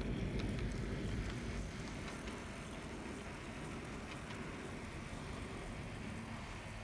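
Brass HO-scale Southern Pacific MC-4 cab-forward model steam locomotive running past on the track: a steady rumble of its wheels and drive rolling on the rails, with a few faint clicks. It is louder for the first couple of seconds, then settles a little quieter.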